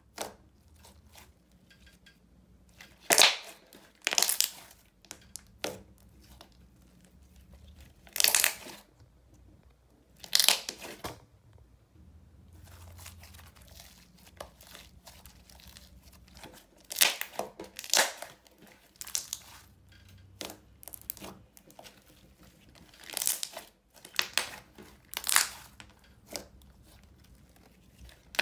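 Thick white slime being squeezed, folded and stretched apart by hand, giving about a dozen short, sharp, sticky bursts a second or several apart, with quiet between them.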